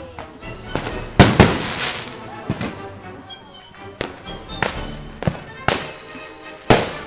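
Consumer fireworks going off as a string of sharp bangs, the loudest pair about a second in and more spread through the rest, over background music. Near the end a 500 g 50-shot firework cake starts firing.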